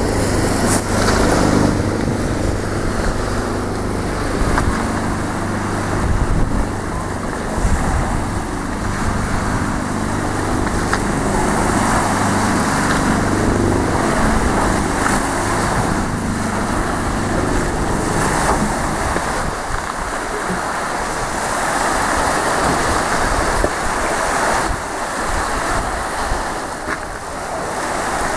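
A boat engine running with a steady low hum that fades out about two-thirds of the way through, leaving the wash of waves and wind noise on the microphone.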